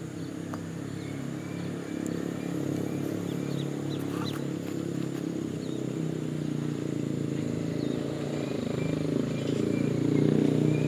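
A small motor buzzing steadily, growing slightly louder over the seconds.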